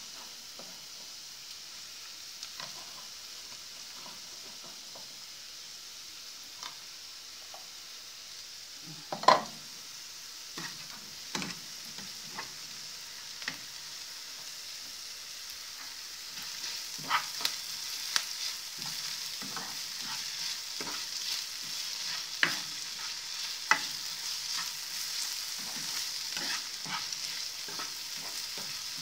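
Chopped onion, garlic and ginger frying in a nonstick pan: a steady sizzle that grows louder from about halfway through. A spatula scrapes and knocks against the pan now and then as the mixture is stirred, the loudest knock about nine seconds in.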